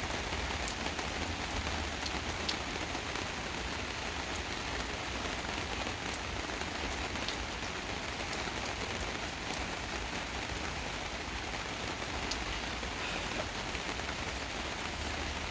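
Steady, gentle rain falling, a constant hiss with scattered individual drops pattering, over a low rumble.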